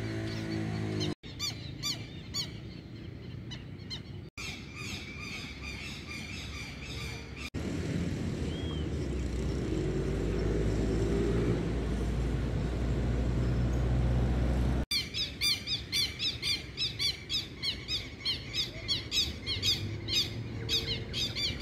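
Wild birds calling outdoors: dense, rapidly repeated squawking chirps, sounding from the start and heavily again through the last third. In the middle they give way to a stretch of low rumbling noise, and the sound breaks off abruptly several times.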